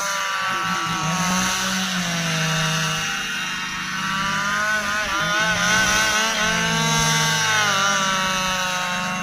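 Stihl two-stroke chainsaw running at high revs while cutting through a dry ipê log. Its pitch sags and recovers several times as the chain bites into the hardwood.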